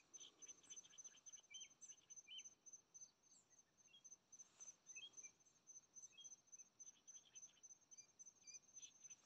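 Faint outdoor ambience: an insect chirping in a steady high pulse about five times a second, with a few scattered short bird chirps.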